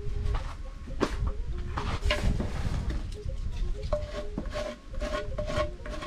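A flat wooden board scraping across a packed earth floor and knocking, in irregular strokes, as dirt and chicken droppings are scooped into a plastic basin. Soft background music runs underneath.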